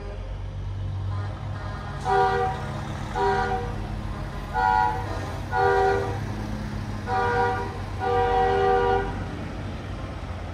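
Semi-truck air horn sounding six short blasts, each a chord of several notes, the last held about a second. Diesel engines run with a low rumble underneath.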